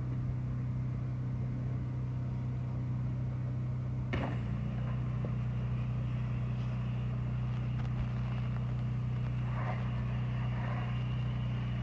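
Honda GX390 single-cylinder petrol engine driving a 4000 PSI pressure-washer pump, running steadily. About four seconds in there is a click, the engine note shifts slightly, and a spray hiss joins and carries on.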